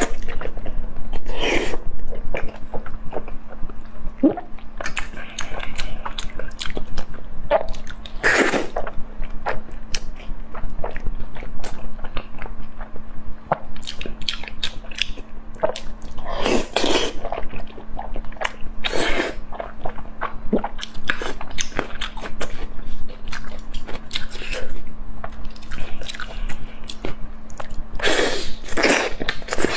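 Close-miked eating: bites and wet chewing of braised meat, many short smacking clicks, with a few louder bites spread through, over a faint steady hum.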